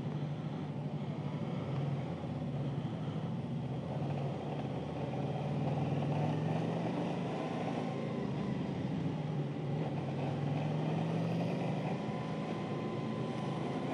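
Motorcycle engine running at a steady road cruise with wind and road noise; the engine note rises a little around the middle and then holds.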